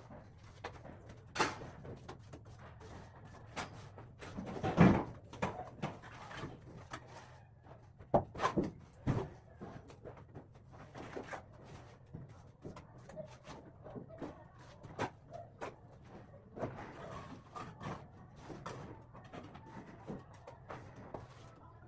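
Cement plaster being worked onto a concrete block wall by hand: irregular scrapes, slaps and taps of the trowel on the mortar and wall, with a louder knock about five seconds in and two more around eight to nine seconds.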